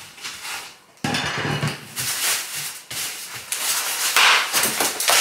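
Microwave packaging being handled: rustling and scraping of the carton and its packing in a run of rough bursts, starting abruptly about a second in.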